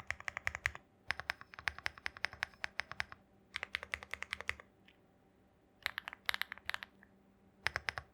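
Typing on a Lucky65 mechanical keyboard with Weikav Coconut Latte switches lubed with Krytox 205G0 and Desert Heat 1.7 mm keycaps. The keystrokes come in quick runs of one to two seconds, broken by short pauses.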